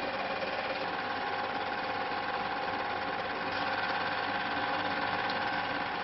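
Train running along the track: a steady engine drone with several held tones over a rough running noise.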